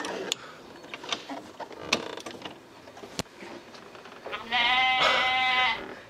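Sharp clicks and knocks of an AC service hose coupler being worked onto a car's air-conditioning service port, which will not seat. Near the end, a loud held, wavering voice-like call of about a second and a half drowns it out.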